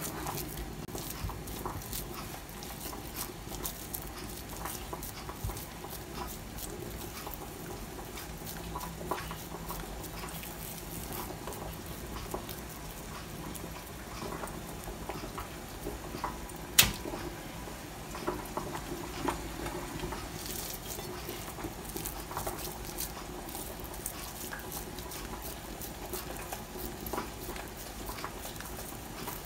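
Bare hands scooping and rolling a moist tuna-and-potato mixture into balls between the palms: many small irregular ticks and rubbing noises, with one sharp click about seventeen seconds in.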